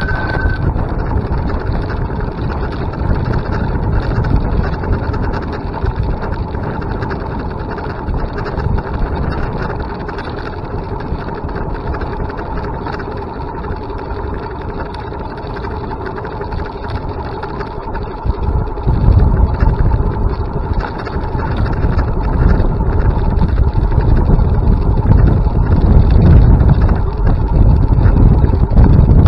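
A vehicle in motion: steady travel noise with a constant whine. From about two-thirds of the way through, wind buffeting on the microphone grows louder.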